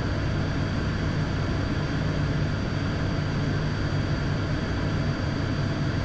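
Steady drone of an ATR turboprop's engines and propellers heard inside the cockpit on final approach. There is a strong low hum and a thin steady high whine above it.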